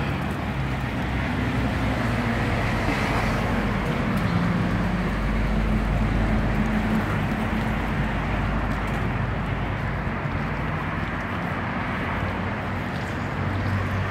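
Steady road traffic noise from cars passing on the street, with wind, and a deeper low rumble around the middle.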